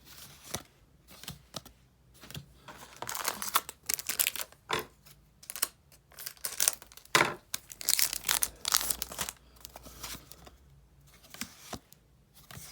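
A Dragon Ball Z CCG booster pack wrapper being torn open and crinkled: a run of short, rustling tears, thickest and loudest between about three and nine seconds in.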